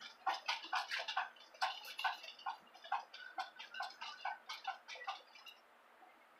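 A rapid, uneven series of small clicks or taps, several a second, that stops near the end.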